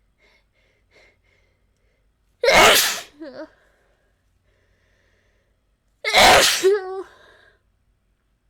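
A woman sneezing twice, about three and a half seconds apart. Each loud sneeze ends in a short voiced tail, and faint breaths come before the first.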